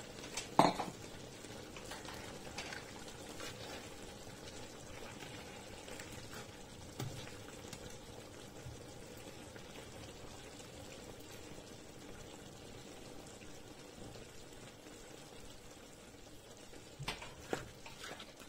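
Sauce simmering in a frying pan of chicken and mixed vegetables, a steady bubbling hiss as the juices cook down. A sharp knock of a utensil on the pan comes about half a second in, with a few lighter clicks later and near the end.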